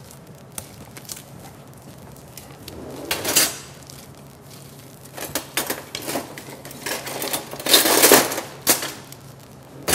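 Bowls and utensils being handled on a kitchen counter: light clicks and clatter, with a brief noisy burst of handling about three seconds in and a louder one about eight seconds in.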